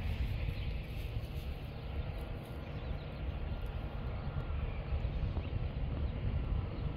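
Wind buffeting the microphone outdoors, a steady, choppy low rumble.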